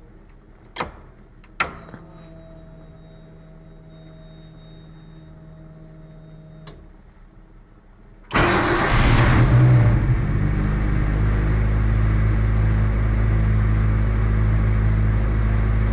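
Lada 2108 (VAZ-2108) being started by push button. First two clicks and a steady electric hum for about five seconds as the ignition is switched on. About eight seconds in, the engine fires, rises briefly and settles into a steady idle.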